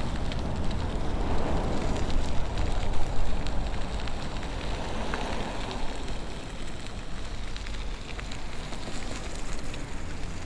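Wind rumbling on the microphone of a moving e-bike, with the crackle of its tyres rolling over snow and slush; the noise eases off after about six seconds.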